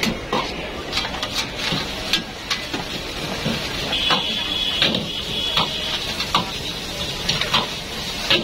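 Steel ladle clanking and scraping against a wok as egg fried rice is stir-fried, with irregular metal knocks several times a second.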